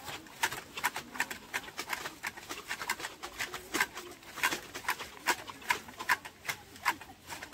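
Tea bushes being cut with hand-held tea plucking shears: a quick, uneven run of crisp snips and leaf rustles, about three a second.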